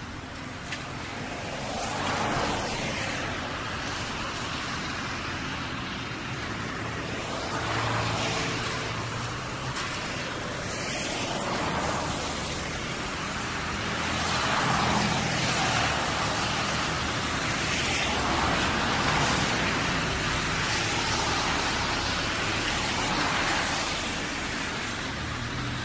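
Cars passing one after another on a wet street, each a swell of tyre hiss on the wet road over a low engine hum, several passing a few seconds apart.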